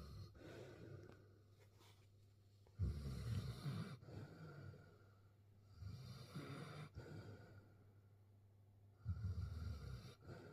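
A sleeping pet snoring: four rattling snores about three seconds apart, each lasting about a second, with quiet breathing between. The owner puts the snoring down to his lying awkwardly among flower pots.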